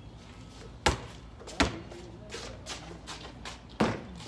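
Basketball thudding three times: sharp single impacts about a second in, shortly after, and near the end.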